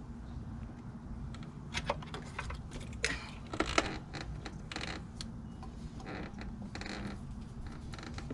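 Irregular clicks and small plastic rattles of a heater hose quick-connect fitting being worked and clipped onto the Y-connector, over a steady low hum.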